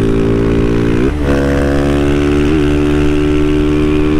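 Single-cylinder engine of a Honda CG 160 Fan running through an open, unbaffled Doré aftermarket exhaust, pulling steadily at road speed. The note breaks briefly about a second in, then carries on steady.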